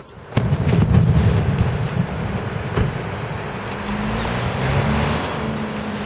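Fireworks: a burst about a third of a second in, followed by a long rolling rumble with crackling and scattered pops.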